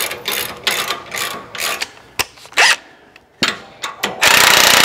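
Metal hand tools clicking, knocking and scraping against a bolt and steel bracket. About four seconds in, a cordless impact wrench starts hammering loudly and steadily, tightening a nut on the bolt.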